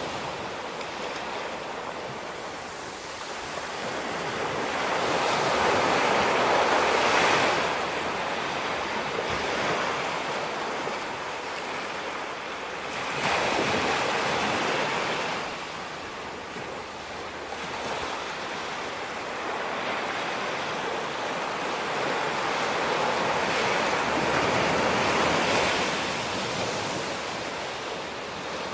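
Ocean waves breaking and washing up on a beach, the rush swelling and falling away several times.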